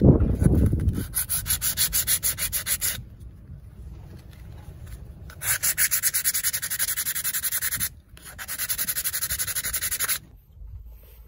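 180-grit sandpaper rubbed by hand over a wooden hand-saw handle in quick back-and-forth strokes, about seven a second, in three runs with short pauses between. A low rumble of handling noise is loudest in the first second.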